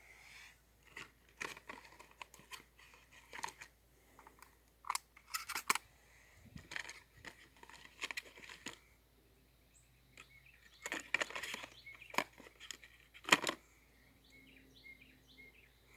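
Shotgun shells and a shotgun being handled: shells pushed into the gun's magazine. It is a run of sharp, irregular clicks and clacks with some rustling, and the loudest clack comes near the end.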